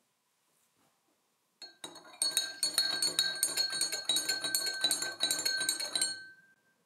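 Metal spoon stirring water in a drinking glass, clinking rapidly against the glass for about four seconds, starting about two seconds in. The glass rings briefly after the last clink.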